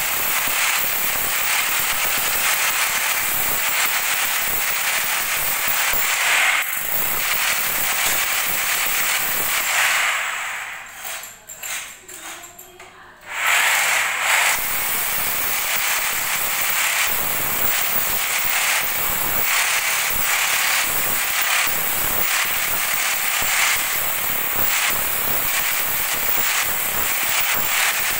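Corded electric hammer drill chiselling into the tile and cement floor around a toilet base, a loud continuous rattle of rapid blows. It stops for about three seconds roughly a third of the way in, with a couple of short bursts, then runs on again.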